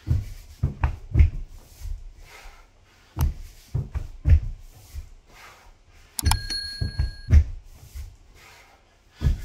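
Dull thuds of hands and feet landing on a laminate floor during burpees, coming in quick groups of two or three, with breaths between. A short steady high tone sounds about two-thirds of the way through.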